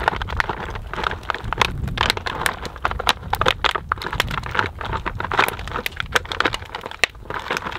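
Wood campfire crackling with many irregular sharp pops, alongside the crinkle of a plastic package as fresh tortellini are tipped into a pot.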